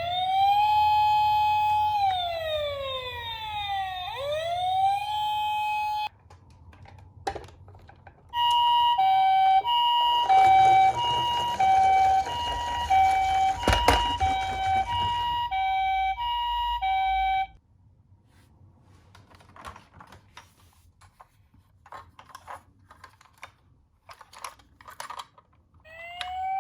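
Toy police car's electronic siren wailing, its pitch sweeping up and falling away several times; after a short gap a toy ambulance's two-tone 'pee-po' siren alternates between two notes for about nine seconds. Then only faint small clicks and taps, until a siren sweeps up again at the very end.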